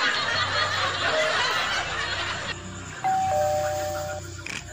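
A two-note ding-dong chime, high then lower, rings for about a second about three seconds in. Before it comes a stretch of dense noisy sound.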